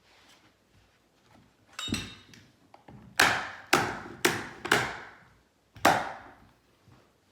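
Sharp knocks of a tool striking wood on the stairs: a softer knock about two seconds in, then four strikes in quick succession and a fifth a second later, each ringing briefly in the room.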